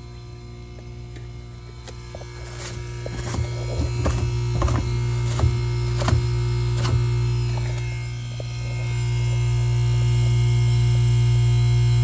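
Carrier 38YCC heat pump outdoor unit running, a steady low electric hum that grows louder twice. Scattered sharp clicks and crackles in the middle.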